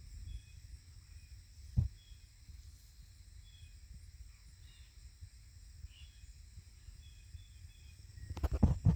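Evening insects, crickets among them, trilling steadily with short chirps over a low rumble. A single thump comes about two seconds in, and a quick run of knocks and rustles near the end.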